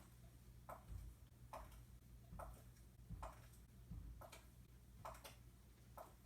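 Recorded footsteps played faintly through a laptop speaker: even, evenly spaced steps, a little more than one a second.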